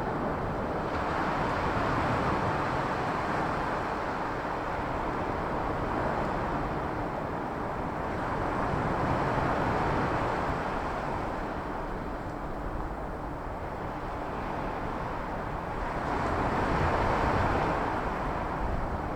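Surf from a rough, stormy sea rushing onto the shore, a steady roar that swells three times as waves break, about seven seconds apart.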